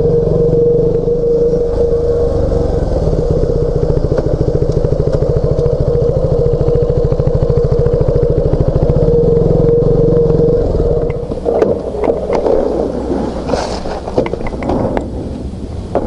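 KTM 200 Duke's single-cylinder engine running at low speed, its exhaust pulsing evenly. About eleven seconds in the engine drops back and becomes quieter, with scattered clicks and scrapes over it.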